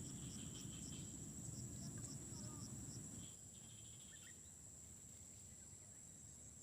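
Insects, crickets or cicadas, droning on one steady high note. A low rumble fades out about three seconds in, and a few faint short chirps come over it.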